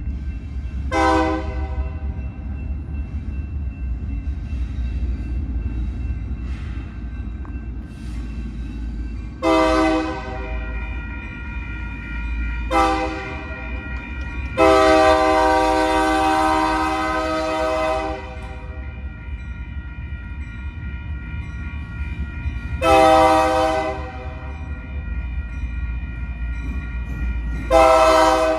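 Locomotive air horn sounded by the engineer in a horn show of six blasts over the steady low rumble of the train: three short blasts, one long blast of about three and a half seconds, then a medium and a short one.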